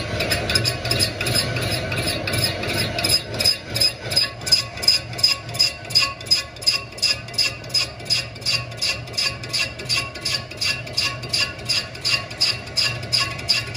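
Metal being struck in a quick, even rhythm, about three ringing clinks a second, settling in after a few seconds of steadier machine noise.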